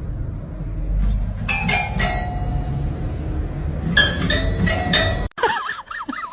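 Several short, ringing bell-like dings over a steady low rumble. About five seconds in, the sound cuts off abruptly and is replaced by quick, warbling high-pitched chirps.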